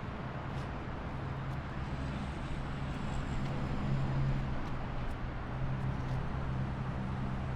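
Steady highway traffic noise: a continuous rumble of passing vehicles, with one louder low-pitched vehicle drone swelling a few seconds in and fading gradually.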